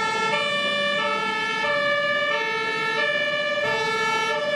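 Two-tone siren of an airport fire truck (crash tender), alternating steadily between a high and a low tone, each held about two-thirds of a second.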